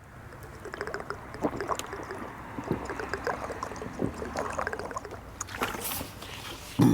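Scattered light clicks and knocks of something being handled, irregular and fairly quiet, over a low steady background hum, with a short voiced sound near the end.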